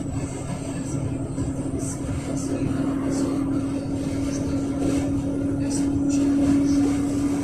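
Yutong ZK6116HG city bus, with its Yuchai YC6G260N-50 compressed-natural-gas engine, running on the road, heard from inside the cabin: a steady rumble and a steady whine that grows a little louder near the end, with light rattles.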